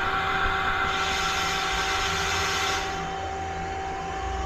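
A Mazak CNC lathe's steady machine hum with two held tones. Over it runs a hiss that cuts off about three seconds in, as the X axis is jogged on the handwheel while the dial indicator rides the gauge block.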